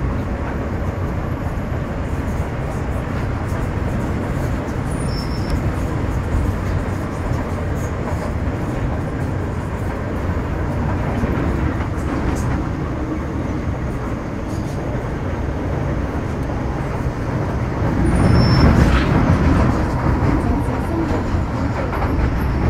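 Inside the cabin of an MTR Metro Cammell M-Train car with GEC GTO chopper traction running between stations: a steady wheel-and-rail rumble with faint steady tones from the traction equipment, growing louder and rougher for a couple of seconds near the end.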